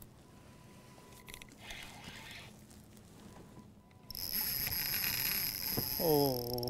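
Electric trolling motor of an Old Town Sportsman Autopilot 136 kayak kicking on: a high steady whine starts about four seconds in, and near the end the motor's hum comes up, dipping and then wavering in pitch.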